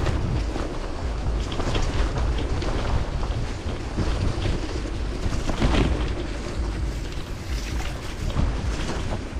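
Bicycle riding over wet, rocky gravel and mud: the Panaracer GravelKing SK tyres crunch and hiss on the wet surface while the bike rattles and knocks over stones, with a low rumble of wind on the microphone. There is a louder knock about six seconds in.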